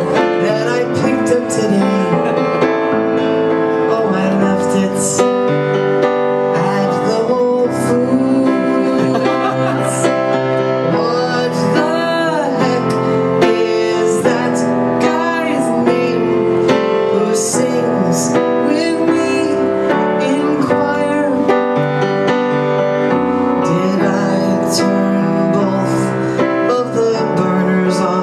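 Piano played continuously with a woman singing along: a live solo song at the keyboard.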